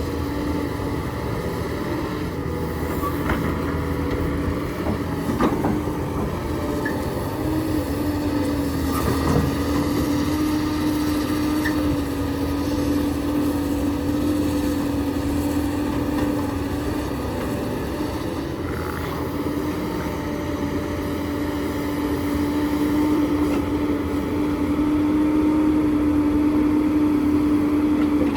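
Heavy diesel construction machinery running steadily with a constant drone, a few sharp knocks in the first third, and growing a little louder near the end.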